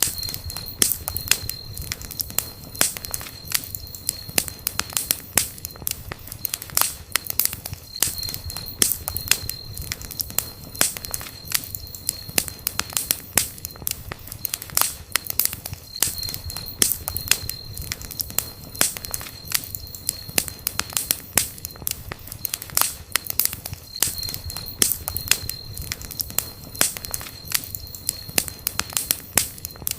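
Wood campfire crackling, with many sharp pops and snaps of varying strength over a low rumble of the burning fire. A faint high steady whine comes and goes every few seconds.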